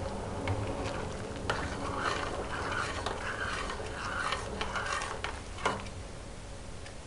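A metal spoon stirring hot brine in a stainless steel pot, with repeated swishes through the liquid and two sharp clinks against the pot, the second louder, near the end. It is stirring so the salt and sugar dissolve as the brine heats toward the boil.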